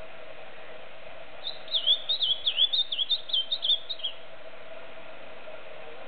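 Ultramarine grosbeak (azulão, Cyanocompsa brissonii) male singing one rapid warbled phrase of quick up-and-down whistled notes, starting about a second and a half in and lasting about two and a half seconds.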